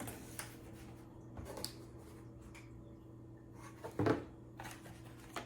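Cardboard panels of a flat-pack cat scratcher box being handled and slotted together: scattered rustles and light knocks, the loudest about four seconds in, over a faint steady hum.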